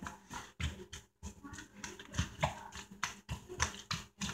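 A fork mashing boiled potatoes and eggs in a plastic bowl: irregular soft clicks and taps of the fork against the bowl, about three a second.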